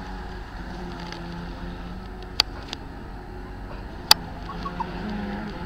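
Electric motor of a 40-inch Admiral RC boat humming on the water, swelling and fading. A sharp click comes about halfway through, and a louder one a couple of seconds later.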